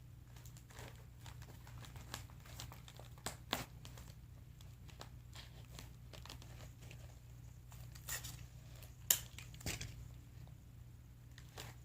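Sticky tape and cardboard being handled: scattered crinkling and short tearing sounds, with a few sharper crackles, over a steady low hum.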